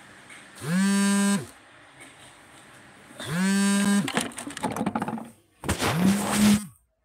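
A mobile phone's vibration motor buzzing in three pulses of just under a second each, about two and a half seconds apart, each swelling in and dying away. Between the second and third buzz there are rustles and knocks as the phone is handled.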